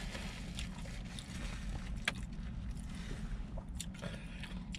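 Steady low rumble of a car cabin, with scattered small clicks and rustles of food and a paper takeout bag being handled while eating.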